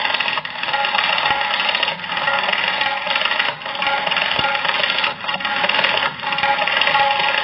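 Tabla pair (dayan and bayan) played in a fast, dense solo passage, rapid finger and palm strokes running together with no pause.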